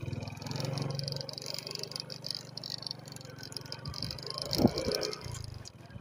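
A vehicle engine running steadily, with a few knocks about four and a half to five seconds in.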